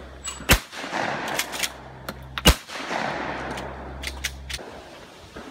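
Shotgun firing two shots at clay targets, about two seconds apart, each a sharp loud report with a short ring after it. A few fainter clicks follow.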